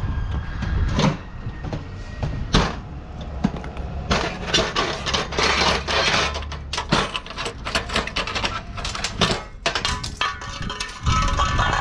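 Sheet-metal appliances knocking and clanking as they are shoved and loaded into a truck bed, with a stretch of metal scraping and sliding in the middle.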